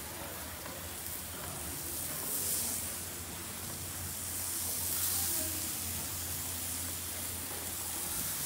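Marinated ribeye beef kabobs sizzling on a hot grill as they are laid on, a steady hiss that swells twice as more skewers go down.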